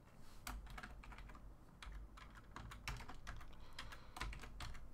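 Faint typing on a computer keyboard: a quick, irregular run of keystrokes.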